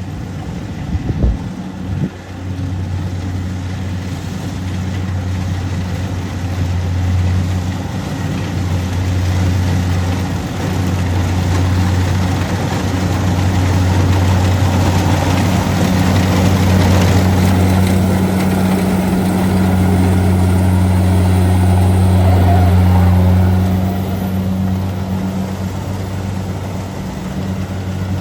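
Engine of a rice combine harvester running steadily with a low hum, growing louder for a stretch in the middle and then easing off. A couple of sharp knocks come about a second in.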